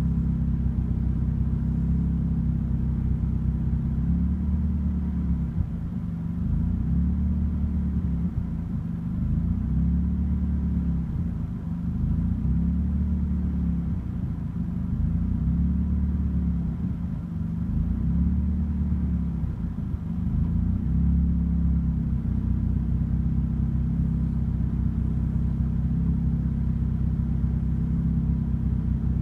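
Turbocharged Mazda Miata inline four-cylinder engine running a rough idle on Megasquirt MS3 engine management. The idle is unsteady, rising and falling repeatedly through the middle, and evens out more toward the end.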